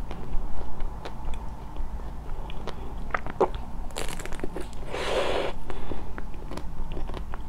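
Close-miked biting and chewing of a frozen purple ice cream bar on a stick: scattered crunchy clicks, with a brief louder rush of noise about five seconds in.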